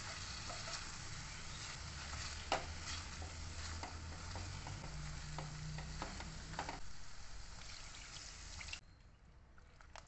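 Okra frying in masala in a metal kadai, sizzling steadily while a silicone spatula stirs and scrapes it, with scattered clicks and one sharp knock of the spatula about two and a half seconds in. Near the end the sizzle drops away suddenly, leaving quieter stirring clicks.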